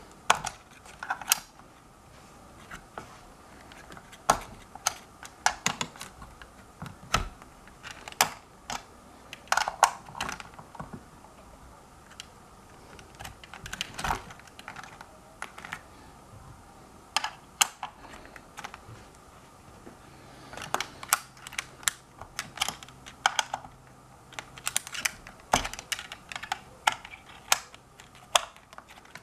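Irregular sharp clicks and taps of hands handling screws, tools and parts inside a hoverboard's metal frame as the wheel motor mount is fitted and tightened down.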